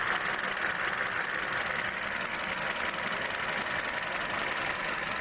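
Car engine idling steadily and smoothly with new ignition coil packs fitted: the misfire and shaking from the bad coils are gone. The sound is a steady, hissy running noise.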